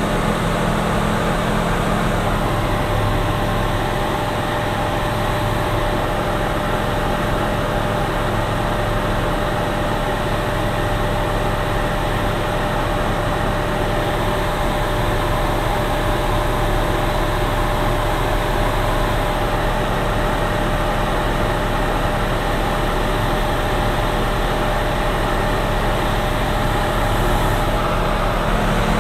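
Steady drone of a single-engine light aircraft's engine and propeller heard inside the cockpit during cruise descent, with a constant low hum and a thin steady whine, no change in power.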